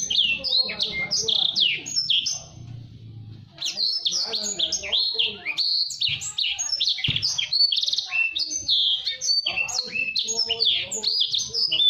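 Blacksang (blackthroat × sanger canary hybrid) singing a fast, tightly packed song of quick high chirps and trills. The song breaks off a little over two seconds in for about a second and a half, then runs on without pause.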